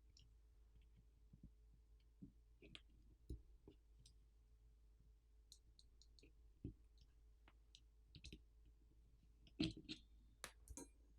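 Faint, scattered clicks and light taps of a small screwdriver and screws being worked on a power bank's internals, with a louder cluster of clicks near the end.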